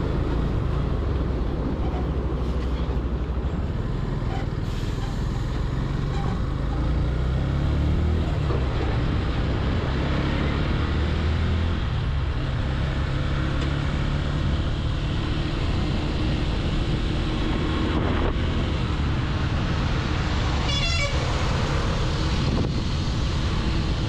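Motorcycle engine running under way, its pitch climbing as the bike accelerates and then holding steady at cruising speed. A vehicle horn sounds briefly near the end.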